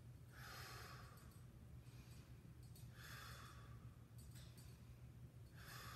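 A man's faint, slow breaths while holding a side plank: three breaths, roughly two and a half seconds apart, over a low steady hum.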